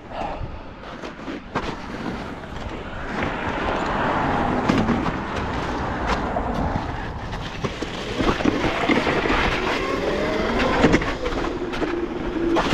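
Electric dirt bike (72-volt Razor) riding on ice and slush: a steady rush of tyre and wind noise that builds up about three seconds in, with a faint motor whine rising and falling.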